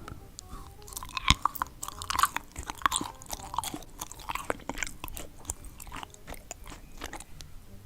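Close-miked mukbang ASMR eating: a person biting and chewing a crisp, crunchy food, with many sharp crunches and clicks, densest in the first few seconds and thinning out toward the end.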